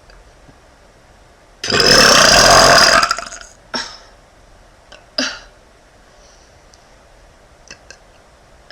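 A young woman's long, loud burp lasting about a second and a half, followed by two short, fainter sounds a couple of seconds later.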